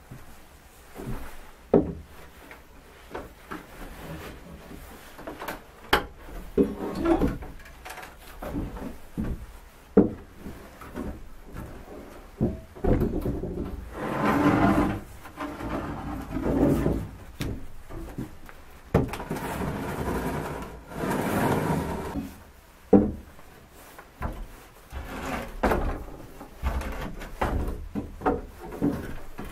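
Old wooden attic boards being torn up: irregular creaking and scraping of wood, with sharp knocks now and then and longer bouts of creaking in the middle.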